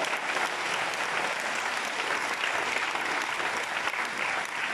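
Theatre audience applauding, many hands clapping at a steady level.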